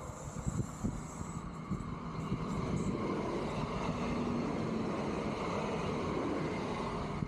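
A vehicle going by close to the street, its rushing noise swelling about two seconds in and then holding steady.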